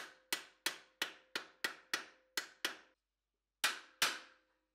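Small hammer striking a steel punch held against a steel helmet face mask: about three evenly spaced blows a second, each with a short metallic ring, the steel ringing faintly under them. After a short pause come two louder blows.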